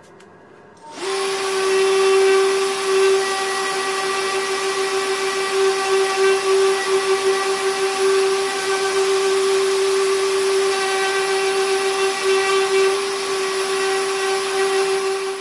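Electric random orbital sander starting about a second in and running steadily on a zelkova wood slab, a constant whine over the hiss of the pad on the wood.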